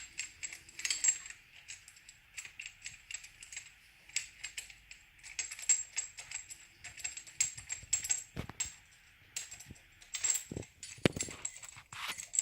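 Irregular light metallic clicks and clinks of an Allen key working the top fasteners of a stainless steel gear pump, with small steel pump parts being handled.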